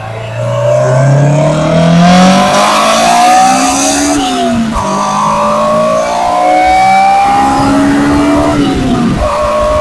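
A 2002 Honda S2000's high-revving 2.0-litre four-cylinder under full-throttle acceleration, heard at the intake and the tailpipe. The engine note climbs steadily as it winds up, drops sharply at an upshift about four seconds in, climbs again, and drops at a second upshift near the end.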